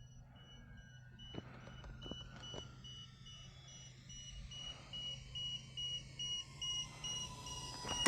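LiPo battery low-voltage beeper sounding a rapid, evenly repeating high-pitched beep, warning of low battery voltage, which the pilot puts down to the cold rather than a truly flat pack. Under it, a faint tone slowly falls in pitch: the plane's electric motors throttling back on the landing approach.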